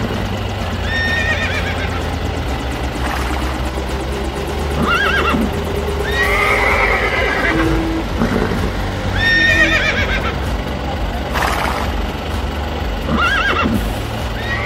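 Horse whinnies, about five in a row, each a wavering high call, over a steady low rumble.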